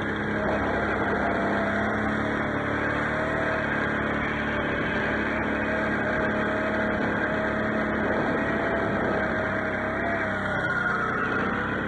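Can-Am Outlander X mr 650 ATV's V-twin engine running under way, its note wavering with the throttle and dipping briefly near the end before picking up again.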